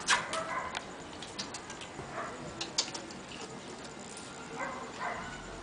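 A Yorkshire terrier and a mixed-breed dog play-fighting on concrete: scattered light clicks and scuffles, with a few faint, short animal sounds around a second in and again about five seconds in.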